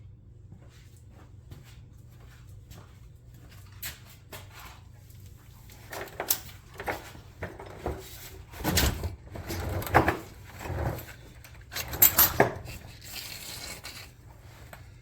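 Metal shifter parts and hand tools being handled and set down: scattered clicks at first, then a busier stretch of clinks, rattles and knocks, loudest about two thirds of the way through.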